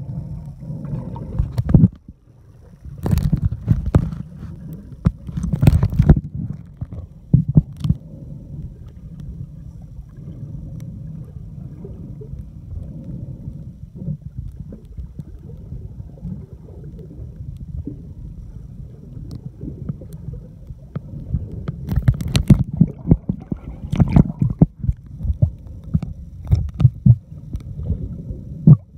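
Sound heard from a camera underwater: a steady muffled rumble, broken by spells of crackling splashes and bubbles as a swimmer kicks and strokes at the surface above, most busily a few seconds in and again near the end.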